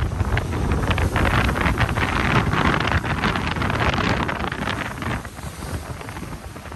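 Strong wind buffeting the microphone in irregular gusts, easing somewhat near the end.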